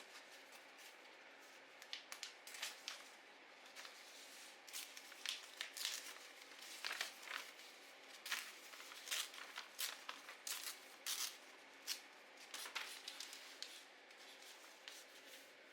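Paper being handled in crafting: a string of short, crisp crackles, snips and tears at an irregular pace, starting about two seconds in and stopping near the end, over a faint steady hiss.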